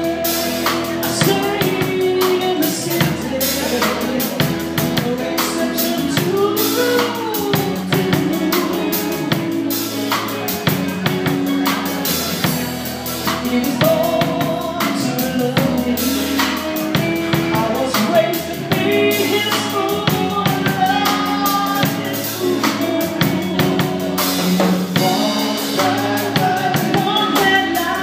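Live rock band playing a song: a drum kit keeps a steady beat with cymbals, under bass guitar, guitars and a singer.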